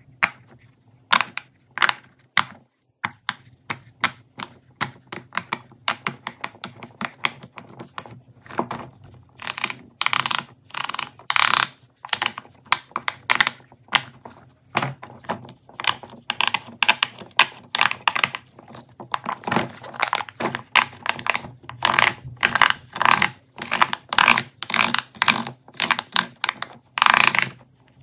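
Fidget toys being handled and pressed: a rapid, irregular run of sharp clicks and pops, thickening into denser bursts of clicking in the second half.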